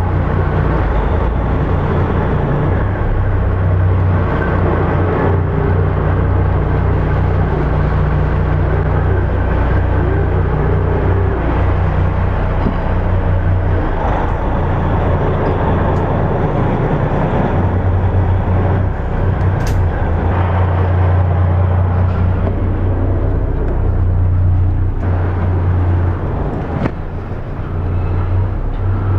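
Motor yacht's engines running at idle: a steady low drone.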